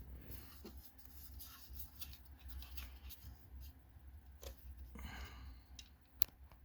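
Faint scattered clicks and rustling over a steady low hum, with one sharp click near the end.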